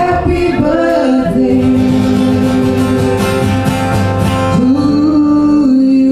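A woman singing into a microphone in long held notes that slide between pitches, over guitar accompaniment.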